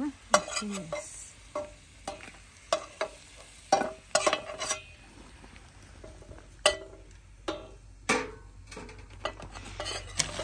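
A utensil stirring and scraping dried chiles frying in hot oil in a small pot: irregular knocks and scrapes against the pot over a light sizzle.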